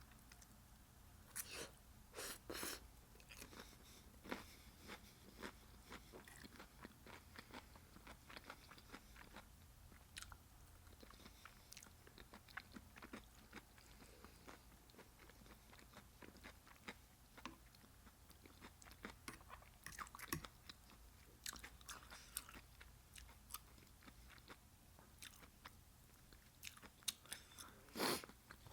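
Close-miked chewing and biting as someone eats broccoli and cauliflower florets dipped in cheese fondue: scattered short bites and wet mouth clicks, with one louder bite near the end.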